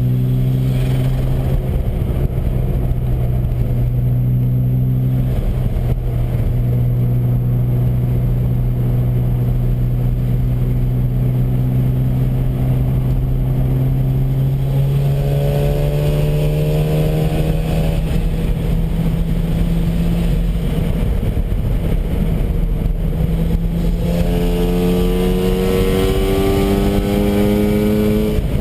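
Mazda RX-7 FD3S's twin-turbo 13B rotary engine running steadily, then climbing slowly in pitch from about halfway through as the car accelerates, with a fresh rise starting again near the end. Steady road and wind noise runs underneath.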